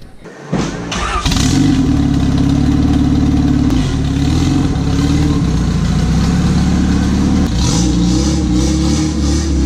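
A car engine starts about a second in and then runs loud and steady.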